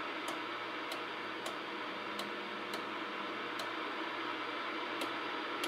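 Lafayette CB base station receiving with the squelch off: a steady hiss of open-channel static from its speaker, broken by single sharp clicks each time the channel selector is stepped down by one channel, about six in the first four seconds and two more near the end.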